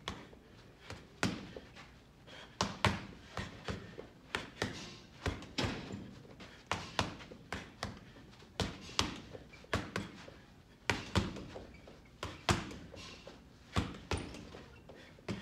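Punches from Rival RB5 bag mitts landing on a hanging heavy bag: a run of sharp thuds, thrown in quick combinations of two to four with short pauses between.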